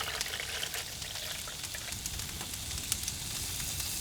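Food sizzling in a pan over an open wood fire, a steady hiss with scattered small crackles and pops.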